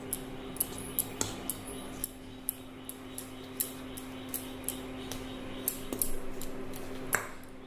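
A wire whisk stirring dry flour mix in a stainless steel bowl, its wires ticking and scraping against the metal unevenly, about three sharp ticks a second.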